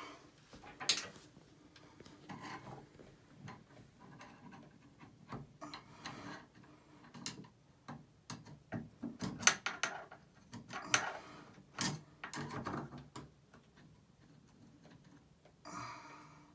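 Grout being chipped and scraped out from around a tub-and-shower valve stem with a small metal hand tool: irregular scrapes and sharp clicks against grout and tile, thickest around the middle.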